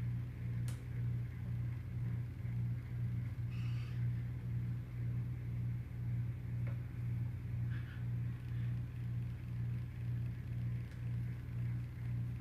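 A steady low motor hum whose loudness pulses about twice a second, with a few faint scrapes and taps of a stir stick mixing epoxy in a small plastic cup.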